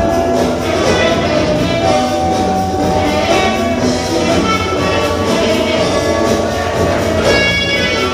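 Loud music with brass over a steady beat.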